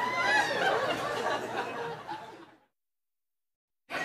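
People laughing, with some talk, then the sound drops to complete silence for just over a second and comes back abruptly near the end.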